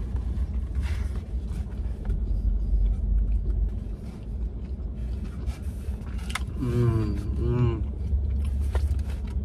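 Low steady rumble inside a car while a man bites into and chews a burger. Two short wavering "mmm" hums come about seven seconds in.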